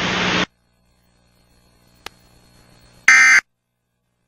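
Emergency Alert System end-of-message code: one short, loud burst of shrill digital data tones about three seconds in, the coded signal that closes a broadcast alert. Before it, a steady hiss cuts off about half a second in, and a faint click follows about two seconds in.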